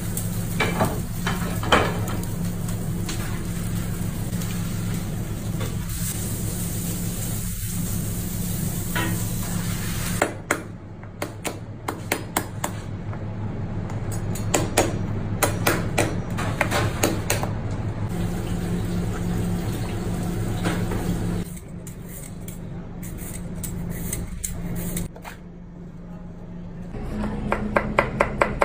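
Kitchen knife work on a plastic cutting board over a steady low hum: scattered clicks and knocks as shellfish are handled and a knife cuts through crab. Near the end comes quick, even chopping, about five or six strokes a second, as a chef's knife slices a vegetable into thin strips.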